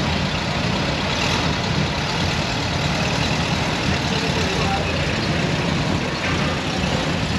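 Car engines idling and running steadily, with the most energy low down.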